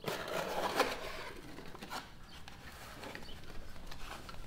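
Cardboard mailer box being opened by hand: a burst of scraping, crinkly cardboard rustling for the first second or so, then softer handling rustles and small ticks.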